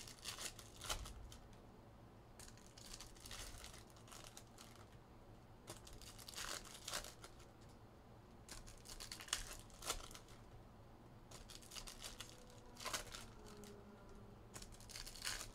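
Foil trading-card pack wrappers being torn open and crinkled by hand, in short bursts every couple of seconds.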